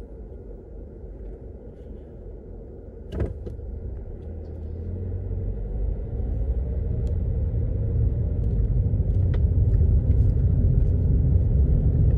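Toyota RAV4 running with a low rumble that grows steadily louder as it gets under way, with one sharp knock about three seconds in.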